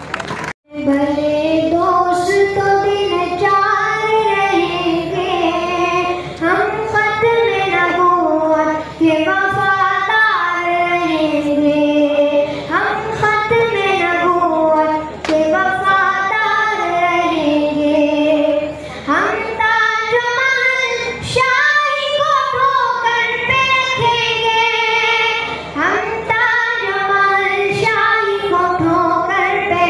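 A boy singing an Urdu naat solo into a microphone, in long melodic phrases held and bent in pitch, with short breaks for breath.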